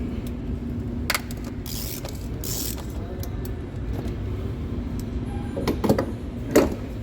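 Metal tool clicks and knocks as a 27 mm socket and wrench work the oil filter housing cap, with the loudest knocks near the end, over a steady low hum.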